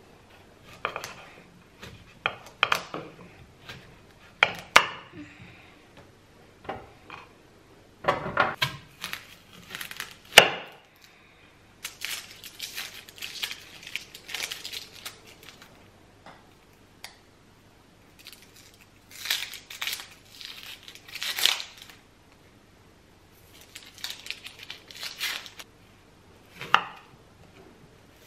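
Vegetable peeler scraping along a butternut squash at first, then dry onion skin crinkling and rustling as it is peeled off by hand, in irregular bursts. Near the end, a knife knocks twice on a wooden cutting board as the onion is cut.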